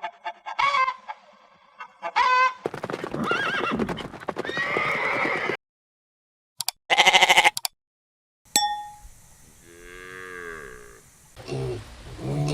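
Farm animals calling in a run of short, separate clips: several pitched calls and cries one after another, broken by about a second of silence just after the middle.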